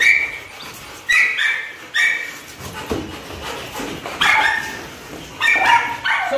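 Pit bull barking excitedly in play: a string of short, high-pitched barks and yips, coming in small clusters with brief pauses between.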